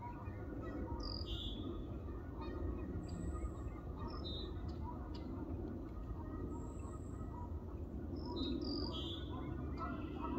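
Birds chirping: a few short, high calls every few seconds over steady low background noise.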